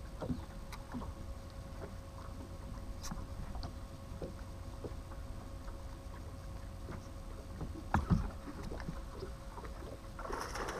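Electric bow-mounted trolling motor humming steadily on a bass boat, with scattered light clicks and knocks throughout and one louder knock about eight seconds in.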